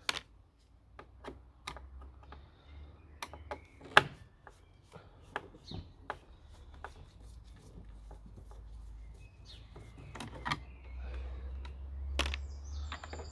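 Irregular clicks and taps of a Torx screwdriver undoing screws in a Dyson DC04 vacuum's plastic casing and handling the plastic parts, with one sharp louder click about four seconds in.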